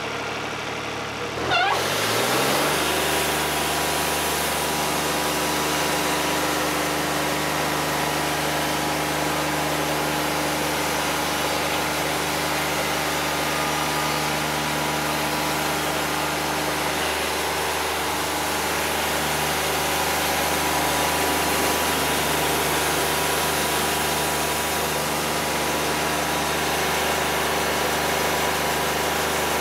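Wood-Mizer LT50 Wide portable sawmill engine revving up from idle about two seconds in, then running steadily at high speed.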